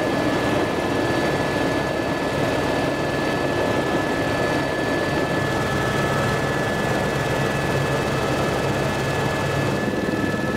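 Helicopter in flight heard from inside the cabin: a steady, dense rotor and engine noise with a thin, constant whine above it.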